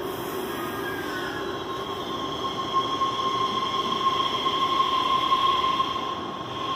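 CPTM Series 2500 electric train running past, its wheels squealing in one steady high tone that grows louder through the middle and eases near the end, over the low rumble of the cars.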